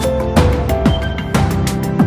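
Background music with a steady beat: a drum hit about twice a second under held notes.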